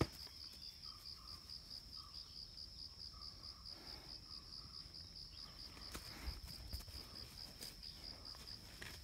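An insect chirping in a faint, steady, high-pitched trill that pulses rapidly and evenly, with a few soft rustles and knocks.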